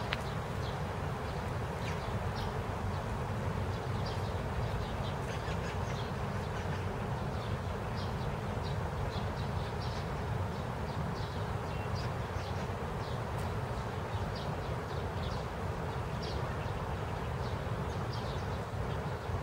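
Steady rain falling on a garden: an even hiss with many scattered small ticks of single drops, over a low rumble.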